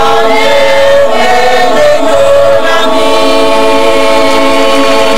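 Women's choir singing in harmony, moving between notes and then holding a long chord from about three seconds in.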